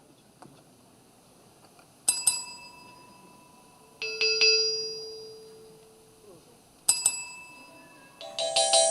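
A small bell is struck a few times: a ding about two seconds in, a double ding near four seconds whose lower tone lingers for about two seconds, another near seven seconds, and a quick run of dings near the end. Each one rings and fades, as the bell of the typewriter 'instrument' is tried out before the piece.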